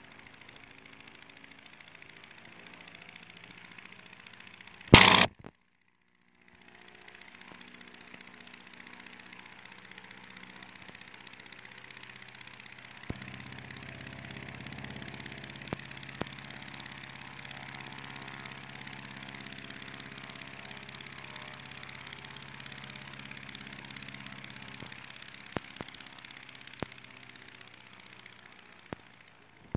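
Demoiselle monoplane's engine running steadily with its propeller turning, growing louder and fuller from about halfway through. About five seconds in there is one very loud blast on the microphone, after which the sound cuts out for about a second.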